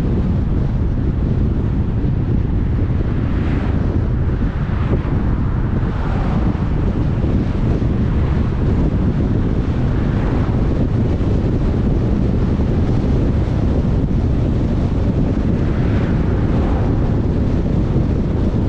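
A car driving steadily: constant low road and wind rumble, with a few brief hissing swells that come and go.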